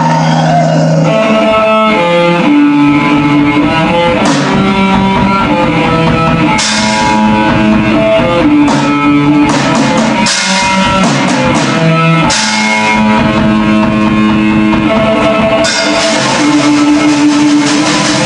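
Black metal band playing: an electric guitar riff of long held notes over a drum kit, with cymbal crashes every few seconds. From about three-quarters of the way through, the cymbals play continuously.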